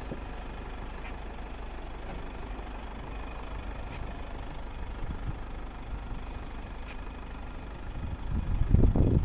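A vehicle driving on a rough dirt road, its engine giving a steady low rumble, with louder, uneven noise starting about a second before the end.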